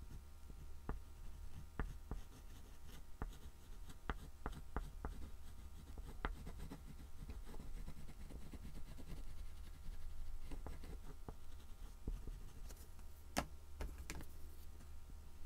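Soft oil pastel stick stroking and scratching on a black-painted MDF board, with scattered light taps as the stick touches down, over a steady low hum.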